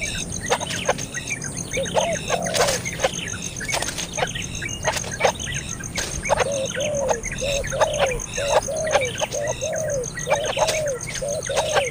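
Baby bird chirping and squeaking repeatedly. About halfway in it breaks into a fast run of short, low rise-and-fall calls, several a second.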